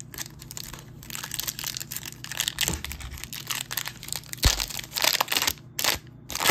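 Trading card pack wrapper crinkling and tearing as it is ripped open by hand, in quick irregular crackles, with a sharper knock about four and a half seconds in.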